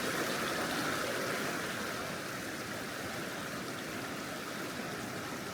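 Creek water flowing, a steady rushing sound that eases slightly about two seconds in.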